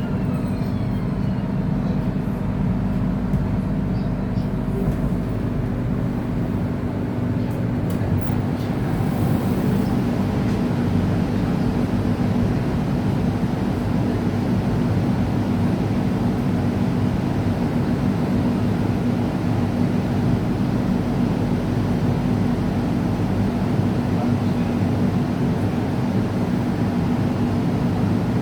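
Interior running noise of a KTM Komuter electric multiple unit: a steady rumble of wheels on track and running gear. A motor whine falls in pitch in the first second.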